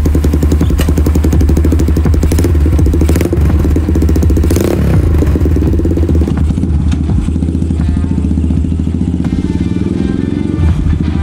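Yamaha Scorpio single-cylinder four-stroke engine running with a rapid firing beat, revved up and back down about four to five seconds in, under background music.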